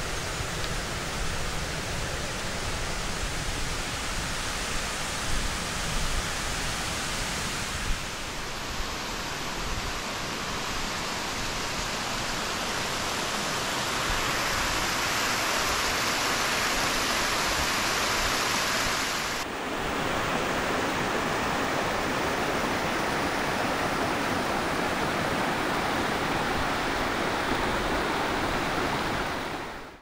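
Falling water from small waterfalls and cascades running over mossy rock, a steady rushing hiss. Its tone shifts a few times, at about 8 s and again at about 19 s, and it gets a little louder partway through. It cuts off abruptly at the end.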